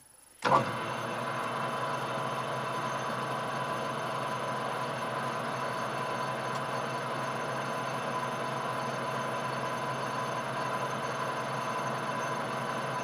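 Metal lathe running steadily with a constant whine, turning a Delrin bar under a knurling tool. It cuts in abruptly about half a second in.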